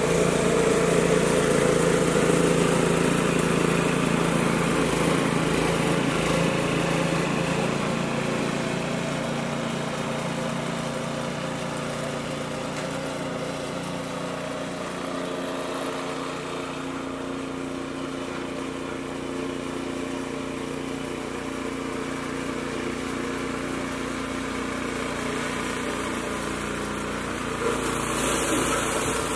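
Walk-behind snowblower's engine running steadily, loud at first, fainter in the middle as it moves away down the driveway, then louder again near the end as it comes back close, with a brief hiss of snow being thrown.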